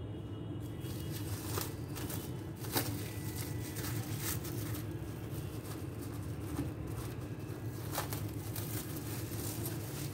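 Plastic cling film crinkling and crackling in a few short bursts as it is peeled off a glass bowl, over a steady low background hum.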